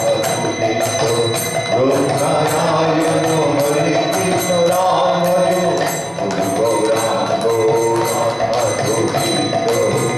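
Group devotional singing (kirtan), with small hand cymbals striking a steady beat about two to three times a second.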